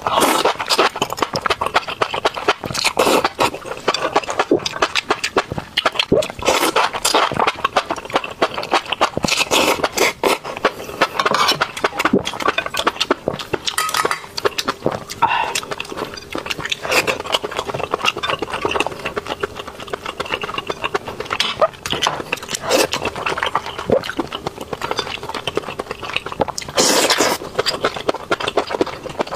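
Close-miked eating: wet chewing, smacking and slurping of spicy, oily hotpot food, with a quick run of irregular mouth clicks that never lets up.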